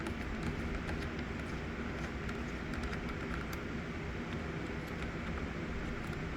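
Steady low background hum with a few faint clicks from a precision screwdriver taking screws out of a laptop's plastic bottom case.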